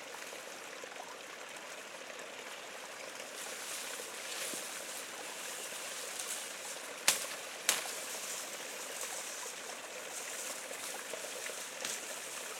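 A steady rushing hiss, with two sharp clicks about seven seconds in, just over half a second apart.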